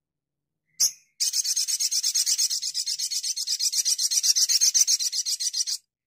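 Olive-backed sunbird (sogon) giving one short high chirp, then, about a second in, a long rapid trill of high notes at about ten a second that lasts some four and a half seconds and stops short.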